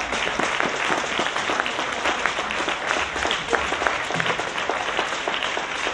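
Spectators applauding steadily, many hands clapping at once, as a badminton match ends.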